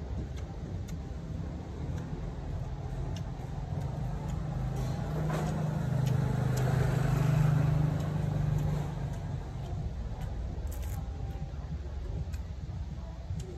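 A motor vehicle passes by: its engine swells to a peak about seven seconds in and fades away by about nine seconds, over a steady low rumble of background traffic.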